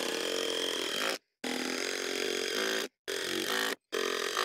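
Cordless power driver running screws into wooden joists in four bursts, each stopping sharply after a short pause, the motor's whine dipping and rising in pitch as the screw bites.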